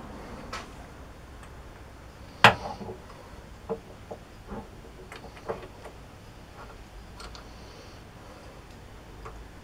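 Scattered clicks and knocks of metal tools and parts being handled at a lathe, with one louder knock about two and a half seconds in.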